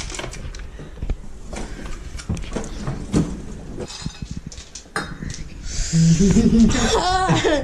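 Ice cubes clicking and rattling in short, irregular knocks as a handful is handled and pushed into the waistband of trousers. About six seconds in, loud voices break out and exclaim with wavering pitch.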